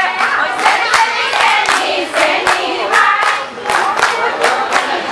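A group of people singing together while clapping their hands in a steady rhythm, about three claps a second.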